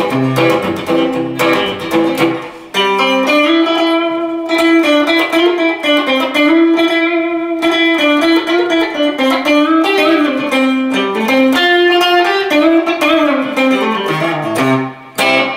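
Electric guitar played solo: a few strummed chords, then a single-note melody of held notes that bend up and down in pitch, ending with strummed chords near the end.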